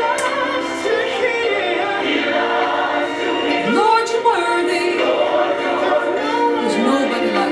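A choir singing a gospel praise song, several voices together with pitch glides and runs.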